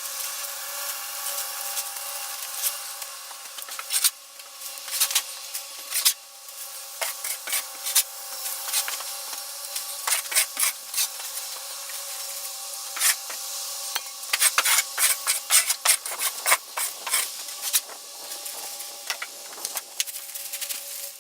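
Irregular scraping and rasping of a tool working through chicken coop bedding on a wooden floor, with scattered sharp scrapes and knocks that come thicker in the last few seconds.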